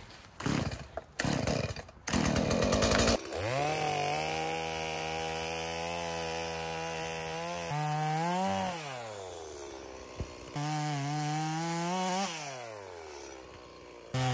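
Gas chainsaw running at high revs. Its pitch holds steady, then twice climbs and falls away as the throttle is opened and released, and the sound cuts in abruptly near the end. A few sharp knocks and a rush of noise come before it, in the first seconds.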